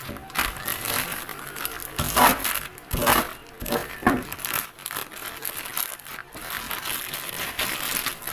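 Plastic packaging being torn open and crumpled by hand, in irregular bursts of crinkling and rustling.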